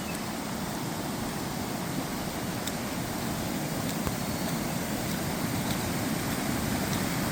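Rushing floodwater, a steady rush that grows slightly louder toward the end.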